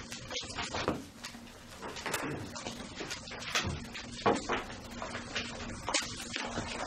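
Scattered knocks, clicks and paper rustling in a small room as people open and handle their books and materials, with one sharper knock a little past the middle.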